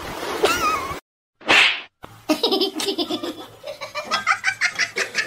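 A person laughing in a quick run of bursts, starting about two seconds in. Before it comes about a second of waves washing against rock.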